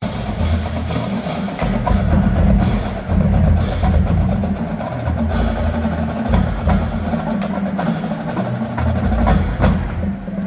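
College marching band performing, led by its percussion, with sharp hits scattered through a full, loud sound.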